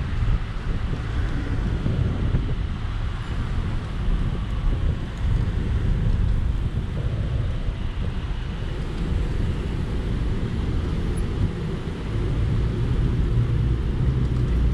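Wind buffeting the microphone on a moving electric scooter, with a steady low rumble of road noise.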